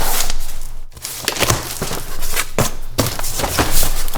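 A shipping box being opened and unpacked by hand: packing material rustling and crinkling, with a few short knocks and a brief tearing sound.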